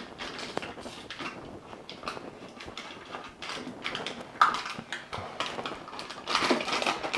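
Protective plastic film being peeled off an acrylic laser-shield cover, with irregular crinkling and crackling of the film and light knocks from handling the panel. A sharp crackle comes about four seconds in, and the crackling thickens near the end.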